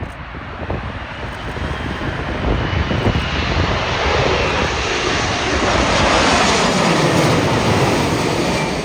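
Large jet airliner on landing approach passing close by: the engine roar swells to a peak and its pitch falls as it goes past. Strong wind buffets the microphone underneath.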